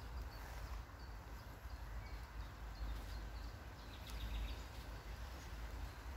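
Outdoor garden ambience: a low, uneven rumble, typical of wind on the microphone, with faint, scattered bird chirps in the background.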